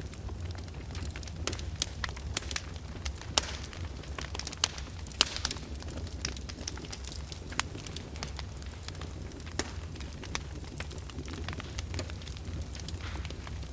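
Fire in a fireplace crackling, with irregular sharp pops that are loudest and most frequent in the first six seconds, over a steady low rumble.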